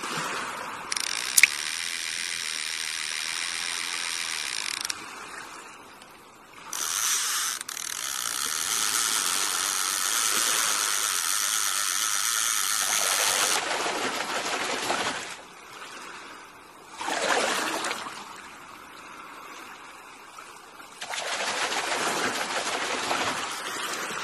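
Fishing reel sound effect: the reel's clicking ratchet buzzing steadily in long stretches of several seconds as line runs out, with quieter swishing noise between them.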